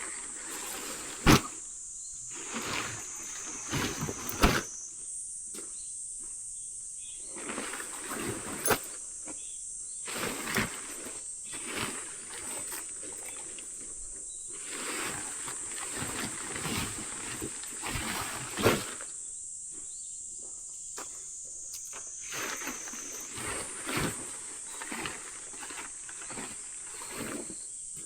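Steady high-pitched insect chirring, with scattered knocks, clicks and rustling throughout; the loudest is a sharp knock about a second in.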